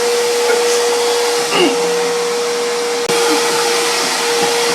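A motor-driven machine running steadily: a constant whine over a rushing hiss, with a few faint knocks and brief cries over it.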